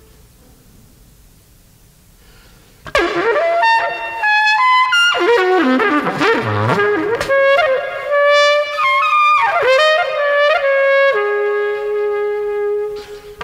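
Solo trumpet improvisation: after about three seconds of quiet, the trumpet comes in abruptly with a fast run of leaping, bending notes. About halfway through, the pitch dips low, and near the end it settles into a long held note.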